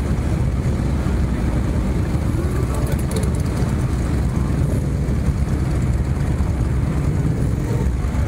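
Motorcycle engines rumbling steadily at low speed in slow traffic, with crowd voices behind.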